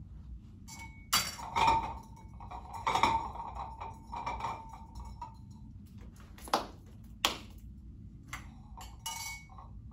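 Tableware clinking as a soup bowl is handled at the table. Several sharp clinks come in the first three seconds, with a ring that hangs on for a couple of seconds, then two more sharp knocks follow a little past the middle.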